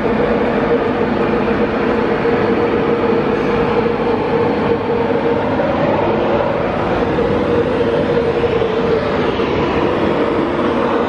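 Class 91 electric locomotive with its Mk4 coaches passing close by: a steady rumble of wheels on rail with a few held humming tones from the locomotive over it.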